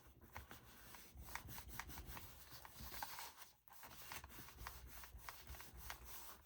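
Faint rustling and scraping of paper being handled and rubbed on a craft table, with many small ticks and taps.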